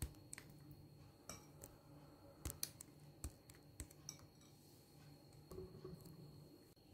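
Faint, scattered clinks and taps of a metal mesh sieve and spoon against a glass bowl while blended orange peel is strained, over near silence.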